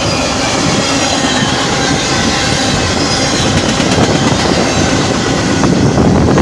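Freight cars of a CSX train rolling past: a steady rumble of steel wheels on rail, with thin high wheel squeal.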